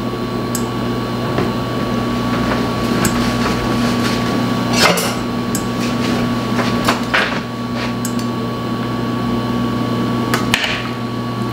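A steady electrical hum with a few sharp knocks; about ten seconds in, a metal slotted spoon stirs the spaetzle and clinks against the stainless-steel pot.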